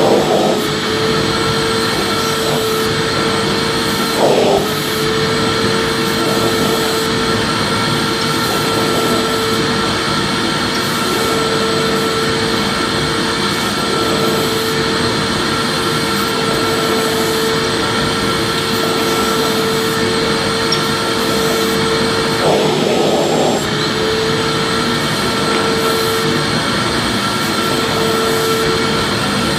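Vacuum cleaner running steadily: a constant motor hum with a hiss of air. The pitch briefly wavers twice, about four seconds in and again a little past twenty-two seconds.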